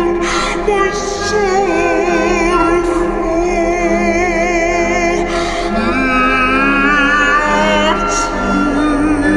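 Background music: a song with a sung vocal line held and wavering with vibrato over sustained accompaniment, with a few short hissy accents.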